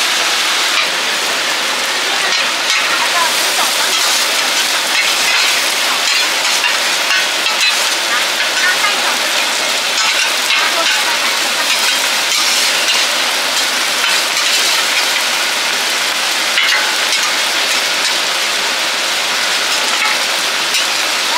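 Taiwanese oyster omelettes (egg, oysters and bean sprouts) sizzling steadily in oil on a flat griddle.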